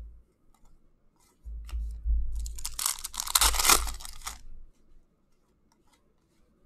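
A hockey card pack's wrapper being torn open and crinkled by hand, about two seconds of tearing and crackling rustle, loudest around the middle, over dull low handling bumps.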